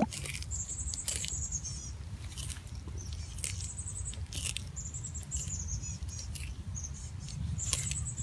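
Sulcata tortoise tearing and chewing leafy greens, with scattered faint crunches and clicks over a steady low rumble. Short high chirps come every second or two.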